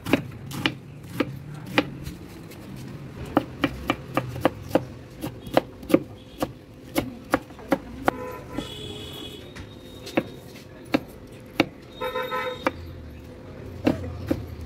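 Large kitchen knife chopping cabbage and then a tomato on a wooden cutting board, with sharp, irregular knocks of the blade striking the board. A vehicle horn honks twice in the background, once a little past the middle and again a few seconds later.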